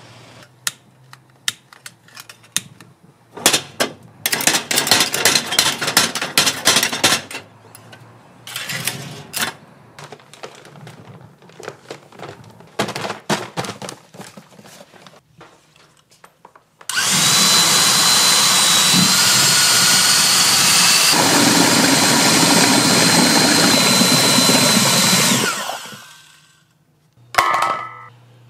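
Clicking and clattering, densest about a few seconds in. Then a small electric motor runs steadily with a thin whine for about nine seconds and stops.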